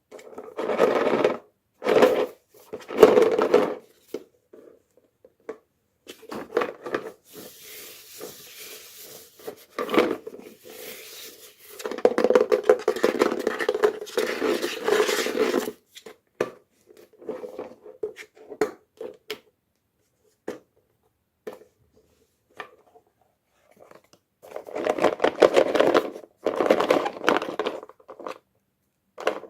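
Hands opening toy packaging: scraping, rustling and tearing in several bursts, with sharp clicks and taps between them.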